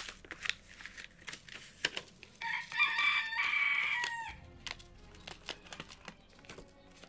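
A rooster crowing once, a call of about two seconds starting a couple of seconds in and ending on a falling note, over light clicks and rustles from handling seeds and seed packets.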